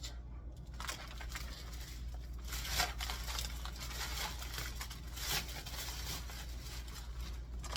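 Plastic food packaging and a trash bag rustling and crinkling in bursts, with a few light clicks, as expired items are handled and thrown out, over a steady low hum.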